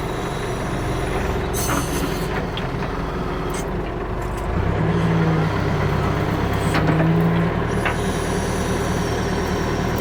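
Tractor backhoe engine running steadily, with a few sharp clanks. From about halfway in, for about three seconds, a stronger, louder hum comes in as the engine takes load from the digging.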